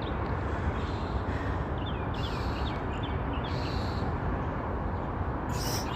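Birds chirping, a quick run of short high notes about two seconds in, over a steady low background rumble.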